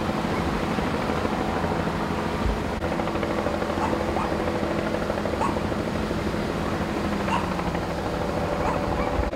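Engine running steadily, with faint short high chirps every second or two over it.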